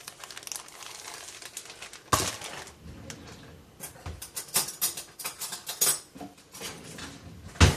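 Kitchen handling noises: a run of clicks, knocks and clinks of dishes and utensils. The loudest knocks come about two seconds in and just before the end.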